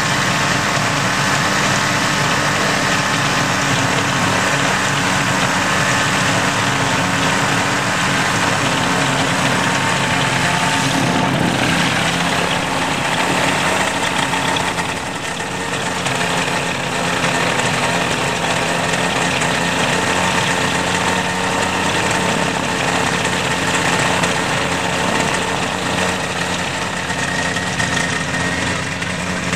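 Small nose-mounted propeller engine of a home-built ultralight airplane idling steadily on the ground, its propeller turning. The level dips briefly about fifteen seconds in.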